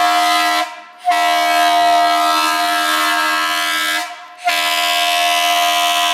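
Fire truck air horn sounded in long blasts at a steady pitch: one blast ends just after the start, a second runs about three seconds, and a third of about two seconds begins a little past the middle.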